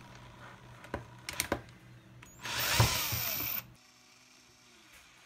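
Cordless drill driving the input shaft of a 3D-printed cycloidal gearbox under load: a few sharp clicks, then one loud run of the drill lasting about a second, starting about halfway through and stopping abruptly.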